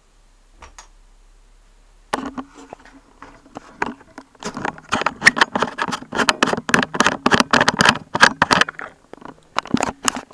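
Handling noise: a dense run of clicks, knocks and rustles as the camera is picked up and moved, starting about two seconds in after a near-quiet start.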